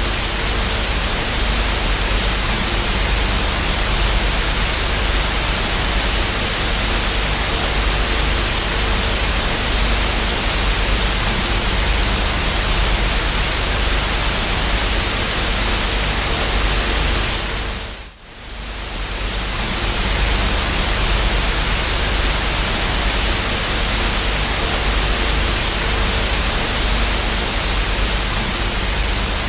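TV static: the steady hiss of a television with no signal, with a faint low buzz under it. About eighteen seconds in it fades down briefly and swells back up.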